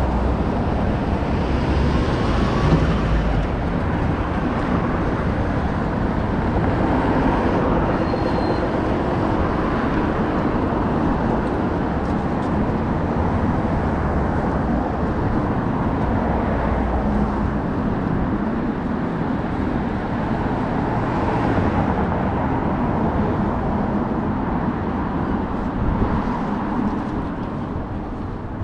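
Steady city road traffic, vehicles passing one after another.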